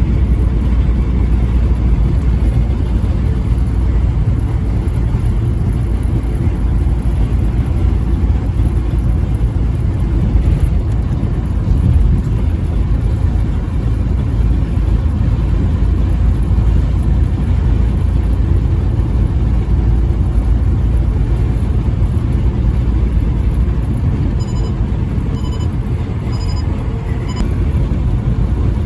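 Steady low rumble of a vehicle driving on the highway. Near the end come about five faint short beeps, evenly spaced.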